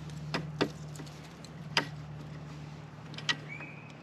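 Four sharp clicks and taps from hand-working the footpeg mounting hardware (pin and bracket), over a steady low hum; a short high chirp comes near the end.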